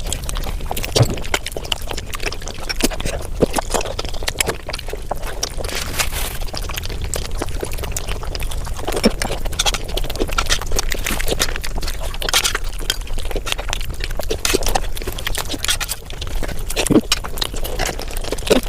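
Mukbang eating sounds sped up to five times normal speed: a rapid, continuous run of wet chewing and slurping clicks and smacks.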